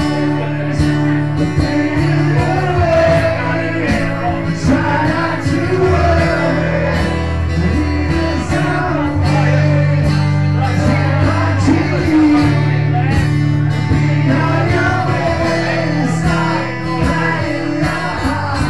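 Live acoustic guitar music with singing: guitars strummed to a steady beat under a melody line.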